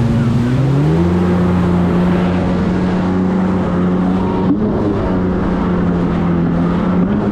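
Jet ski engine running under way, its pitch rising as the throttle opens about a second in, then holding steady at speed, with a brief rise again near the end. A steady rushing noise runs underneath.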